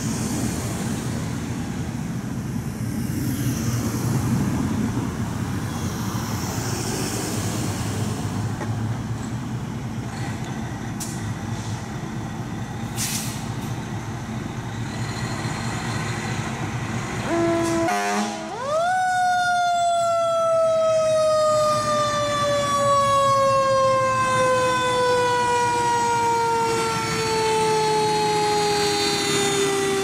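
Fire engine pulling out of its station. For the first half there is an engine rumble and street traffic. Just past halfway its siren winds up sharply, then slides slowly down in pitch for about ten seconds, and it starts winding up again at the end.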